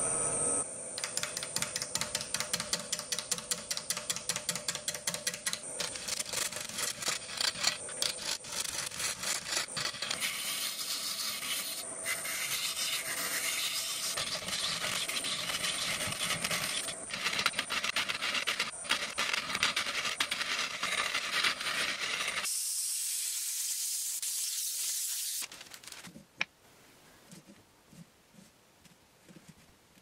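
Wood lathe spinning a large wooden disc while a hand-held turning tool cuts into it, a dense, rapid, uneven scraping chatter of the tool on the wood. About twenty-two seconds in, this gives way to a steady high hiss for a few seconds, and then the sound drops to faint clicks.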